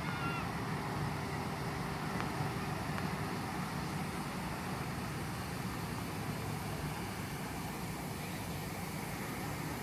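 Steady hum of distant road traffic drifting up from the town, an even low rumble under a faint hiss.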